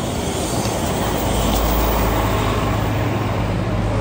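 City street traffic: steady road noise with a motor vehicle's deep engine rumble close by, growing louder about a second and a half in.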